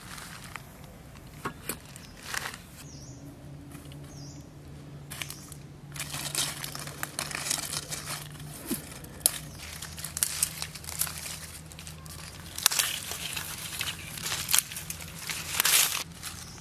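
Rustling and crackling of dry leaves and undergrowth being handled and pulled by hand, in irregular bursts that grow busier from about six seconds in.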